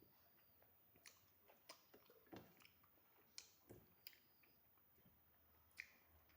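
Faint close-up chewing of soft food: scattered wet mouth smacks and small clicks, several seconds of slow eating, rice and fried vegetables.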